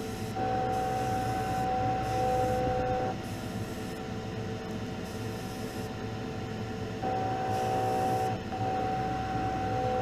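Spray booth exhaust fan running steadily, with an airbrush spraying paint in two spells: from about half a second to three seconds in, and again from about seven seconds on.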